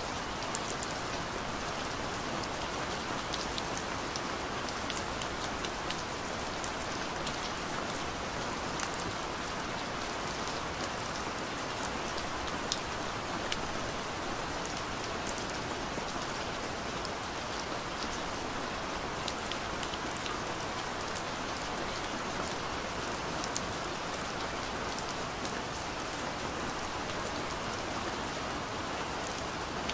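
Steady rain, an even hiss of rainfall with scattered sharp ticks of individual drops.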